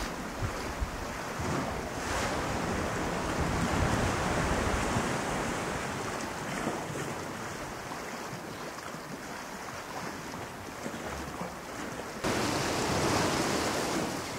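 Ocean waves washing in steady surf, swelling and easing, with some wind. The sound steps up abruptly near the end.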